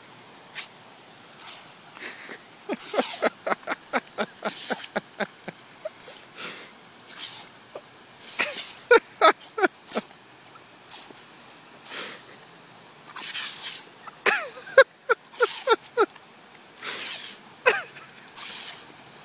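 Boxer puppy snapping at a lawn sprinkler's spray, giving runs of quick short cries, about five a second, in three bursts, mixed with breathy, snorting huffs.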